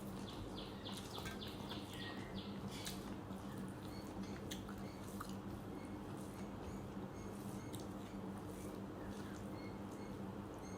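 Close-up eating sounds: a person chewing rice and curry, with small wet mouth clicks and smacks, over a steady low hum.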